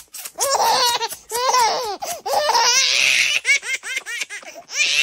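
A baby laughing in four or five fits of high-pitched belly laughter, with short breaks between them.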